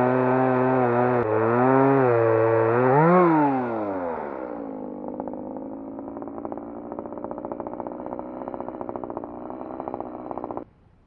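RYOBI ES-3035 electric chainsaw running at high, steady speed, its pitch dipping and rising twice. Then, about three and a half seconds in, it drops to a lower, rattling run for several seconds before cutting off suddenly near the end.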